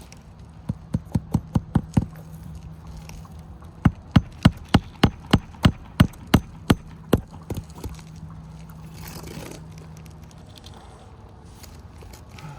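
Hammer driving roofing nails through a replacement shingle: a quick run of about eight strikes, then after a pause a steadier run of about a dozen blows.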